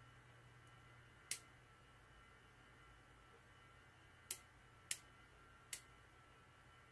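Four short, sharp clicks from the ratchet of an iCrimp IWS-3220M crimping tool as its dies are squeezed shut on a tiny CLIK-Mate terminal: one about a second in, then three in quick succession near the end, over a faint steady hum.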